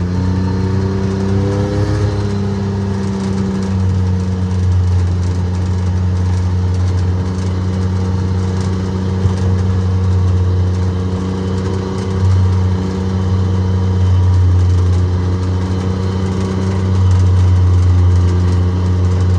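A vehicle's engine runs steadily as it drives, with a brief rise in revs about a second or two in.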